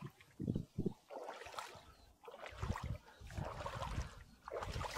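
Irregular sloshing and splashing, like boots wading through shallow water, in uneven steps with some rustling between them.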